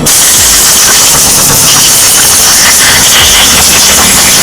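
Compressed air blowing from an air gun in a loud, steady hiss, drying freshly washed brake caliper parts.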